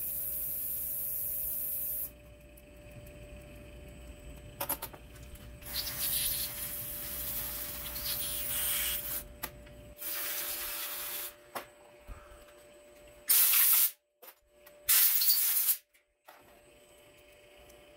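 Pressurized spray hissing in several separate blasts on injector parts: a steady hiss at the start, a longer uneven one midway, and two short, loud blasts near the end that start and stop abruptly.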